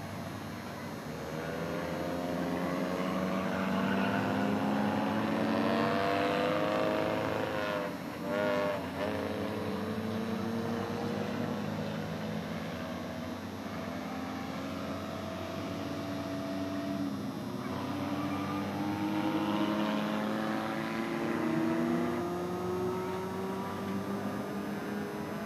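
Engines of several skid-plate race cars running hard around an asphalt track, their pitches rising and falling as the cars accelerate and back off, with a short wavering sound about eight seconds in.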